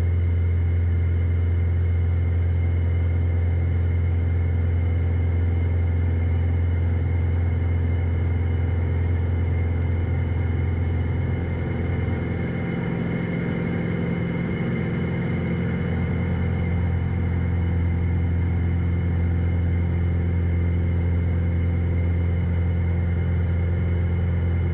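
Steady drone of a Piper PA-46 Malibu's turbocharged six-cylinder piston engine and propeller, heard inside the cabin during a climb at climb power. The level dips slightly about halfway through.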